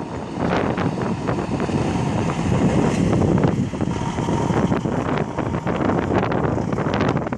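Diesel engine of a 1998 Freightliner truck tractor running as the truck drives past, with heavy wind buffeting the microphone.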